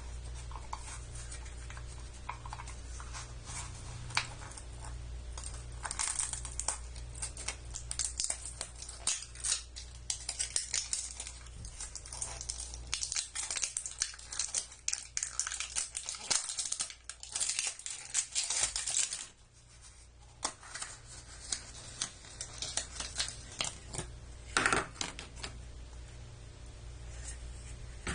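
Crinkling and tearing of plastic shrink wrap being peeled off a plastic toy capsule, a dense run of crackles for most of the first two-thirds. After a short lull come sparser clicks of plastic being handled, with one sharper crack near the end.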